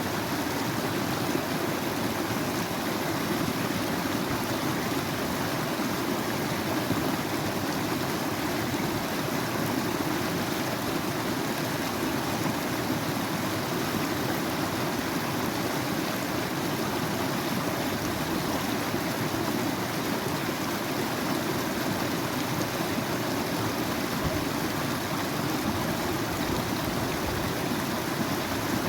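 Running water rushing steadily and evenly, with no breaks or single events.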